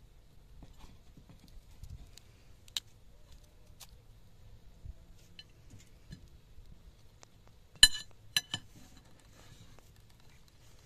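A few faint clicks, then about eight seconds in three sharp taps of a steel knife against a ceramic plate, each ringing briefly.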